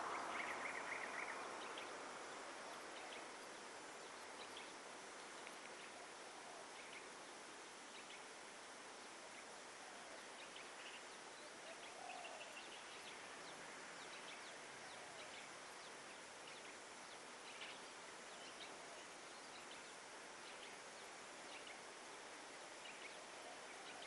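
Faint outdoor ambience: a steady hiss with scattered short, high bird chirps, and a few faint low calls.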